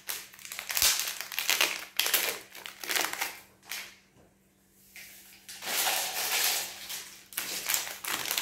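Foil packets of Nescafé 3-in-1 instant coffee crinkling and rustling as they are handled and torn open. The sound comes in several noisy bursts, with a quiet pause about four seconds in.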